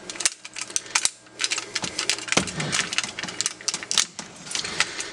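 Hard plastic parts of a Transformers Armada Jetfire toy clicking and knocking irregularly as they are pulled apart and moved by hand to spread its arms.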